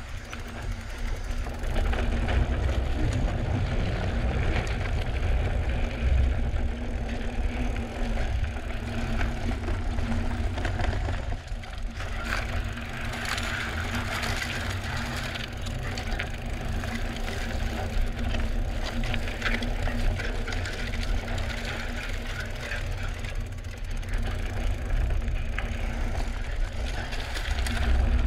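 Drop-bar mountain bike being ridden over a rocky, gravelly trail: tyres crunching and crackling over stones, with the bike's parts rattling, busiest in the middle stretch, over a steady low rumble.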